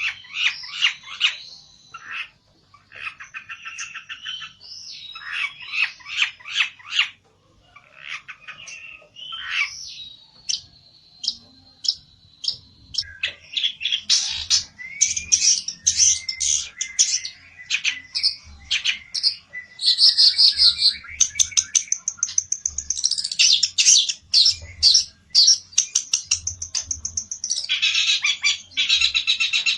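A pelentet songbird singing in fast, chattering runs of chirps and trills with a few held whistled notes. This is the agitated challenge song of a bird calling out to a rival.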